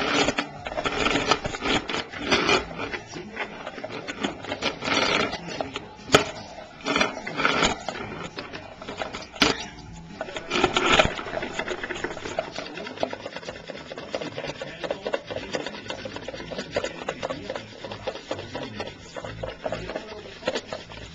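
Scratching and rubbing as a Goffin's cockatoo moves against the camera and a plastic bucket, with a few sharp clicks in the first half and a steadier fine rasping later on.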